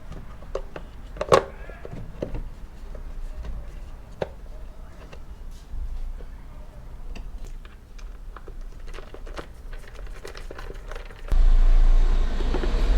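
Work noises from the Ninja 400's airbox area: scattered clicks and taps of tools and parts, with some crinkling of plastic and filter handling. One click at about a second in is the loudest. About eleven seconds in, a louder low rumble begins and continues.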